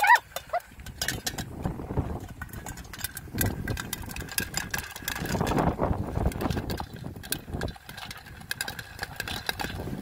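Popcorn kernels popping and rattling inside a lidded pot on a gas-canister camping stove: many sharp, irregular clicks over a steady rushing noise. A brief rising squeak at the very start is the loudest sound.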